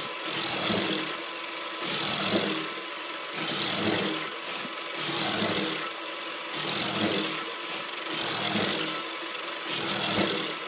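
X3 small mill's spindle running a four-flute variable-helix end mill through 6Al-4V titanium under CNC control. The cutting noise swells and fades about every one and a half seconds as the tool makes repeated low-engagement passes, over a steady motor hum, with a few sharp clicks from flying chips.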